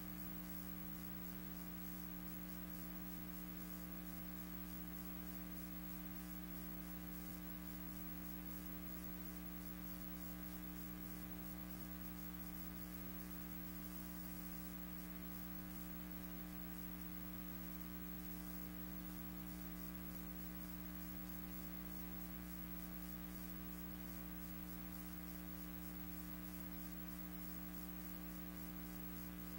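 Steady electrical hum with an even hiss over it and no other sound.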